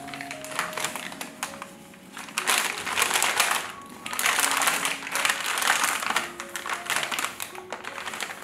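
Paper bag rustling and crinkling as it is folded and wrapped around an avocado by hand, with two louder stretches of crumpling in the middle. Soft background music plays underneath.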